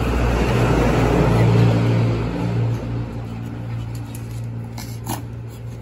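A motor vehicle's engine running as a low, steady hum. It is loudest for the first two to three seconds, then eases to a lower level.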